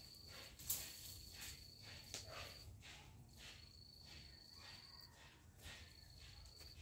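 Faint cricket trilling: a steady high-pitched trill in bouts of one to two seconds, separated by short pauses. Faint scuffing footsteps on bare earth come and go underneath.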